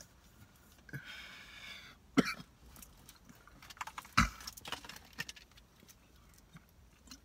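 Short coughs from someone smoking a blunt, with two sharp ones about two and four seconds in.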